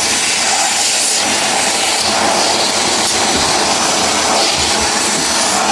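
Vacuum cleaner running steadily at full suction, a loud, even rushing hiss.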